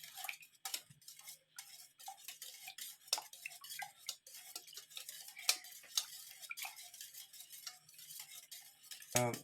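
Whisk stirring milk, egg and melted butter in a bowl, with irregular clinks and scrapes against the bowl's side.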